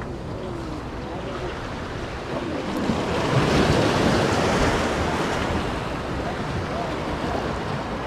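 Surf washing against the boulders of a rock jetty, swelling louder about three seconds in and then easing, with wind buffeting the microphone.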